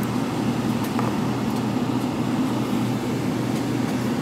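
Steady cabin noise of a Boeing 777-300ER taxiing, heard from inside the cabin: a low hum from its GE90 engines at idle and the cabin air conditioning, with a few faint light ticks.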